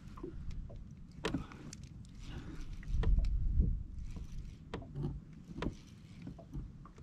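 Knocks and bumps on a kayak while a fish is fought alongside it, with a loud low rumble about three seconds in.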